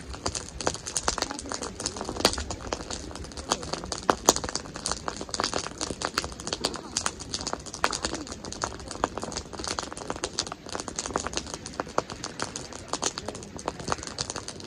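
Wood campfire crackling, with many irregular sharp snaps and pops throughout.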